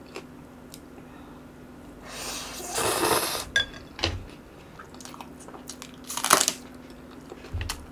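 Close-up eating sounds: a hissing slurp of instant noodles two to three seconds in, then one crisp crunch just after six seconds as a raw green onion stalk is bitten, with a few smaller chewing clicks.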